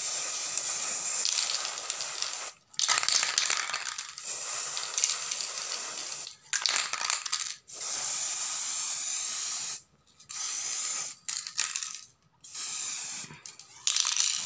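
Aerosol can of silver spray paint hissing onto a wicker basket in about eight bursts, each one to two seconds long, with short breaks between them.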